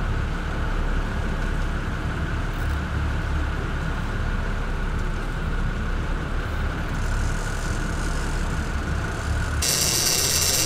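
A boat engine running steadily at sea: a low rumble with a thin constant whine above it. Near the end a loud, high whirring cuts in abruptly as a big lever-drag trolling reel is cranked.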